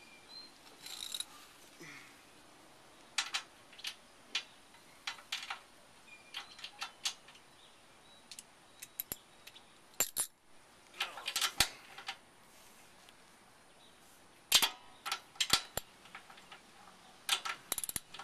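Irregular metallic clicks and clinks of a ratchet and socket being fitted onto side-step mounting bolts under a truck, as socket sizes are tried for the right fit. The clicks come in short clusters, loudest around the middle and near the end.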